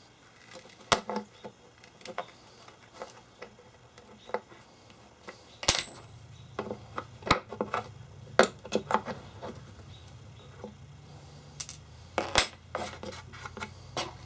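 Irregular sharp metallic clicks, taps and clinks of hand tools working tacks and nails out of an antique wooden tool chest.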